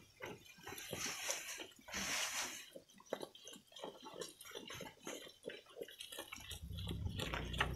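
Goat eating fresh leafy branches: irregular crunching and snapping of leaves as it bites and chews, with brief rustles of foliage being pulled. A low steady hum comes in near the end.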